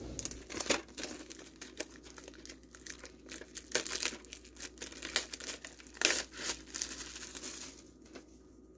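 Plastic shrink-wrap being peeled and torn off a VHS tape case, crinkling and crackling in irregular bursts that die down near the end.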